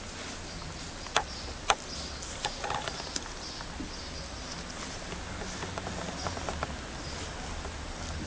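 Close handling noise around a kitten being petted on a carpet: soft rustling with a few sharp clicks, at about one, one and a half, and three seconds in, over a faint steady hum.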